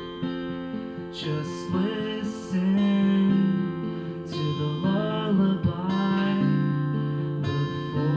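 Acoustic guitar strummed and picked through a song, with a man singing over it for a few seconds in the middle.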